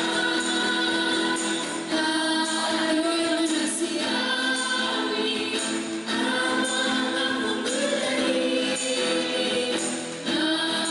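A group of voices singing a Christmas carol together with instrumental accompaniment, with short breaks between phrases about every four seconds.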